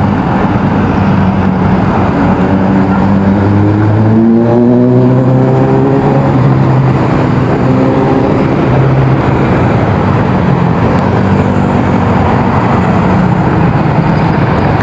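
Heavy city road traffic heard from a bicycle in the bike lane: a steady din of engines and tyres. About four seconds in, one engine close by speeds up, its pitch rising for a couple of seconds.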